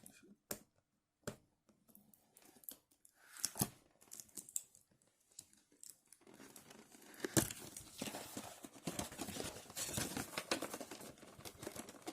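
Figure box and its packaging being opened and handled: scattered clicks and rustles, then from about six seconds in a continuous crinkling and tearing of packaging.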